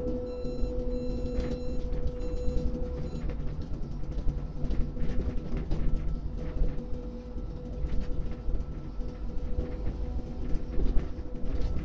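Electric port crane running as it lowers its clamshell grab bucket: a steady machinery hum with a constant whine and low rumble. A pulsing warning beep sounds and stops about three seconds in.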